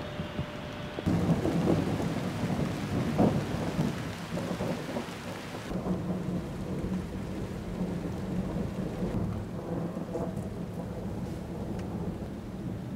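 Thunder in a rainstorm: a loud crack about a second in that rolls on for several seconds, then dies to a lower, uneven rumble over the sound of rain.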